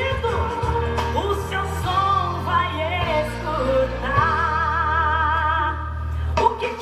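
A song playing: a singing voice over a steady bass line, holding a long, wavering note from about four seconds in.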